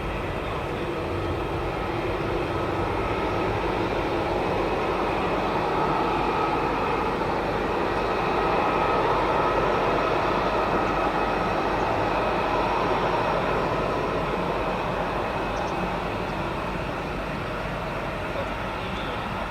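Boeing 767-300 airliner's twin jet engines at takeoff power, a steady roar that swells to its loudest about halfway through and then eases off as the aircraft passes and climbs away.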